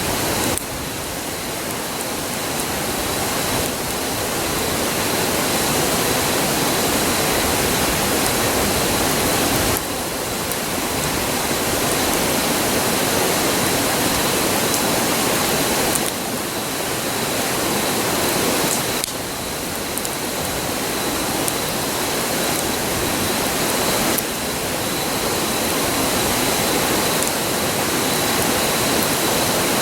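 Steady rushing of a river close by, a constant 'gooo', with faint crackles from the campfire. The overall level steps up and down abruptly a few times.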